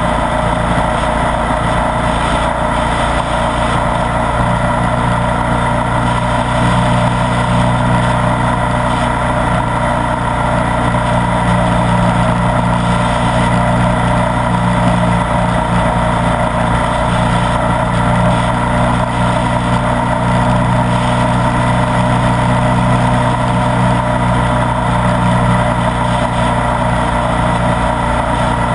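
Ducati Multistrada 1200 S's L-twin engine running at a steady cruise while under way, an even drone with no revving or gear changes.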